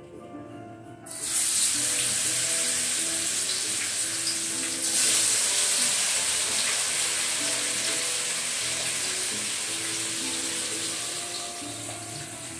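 Pork chops frying in hot lard in a skillet: a loud sizzle starts suddenly about a second in and swells again about five seconds in.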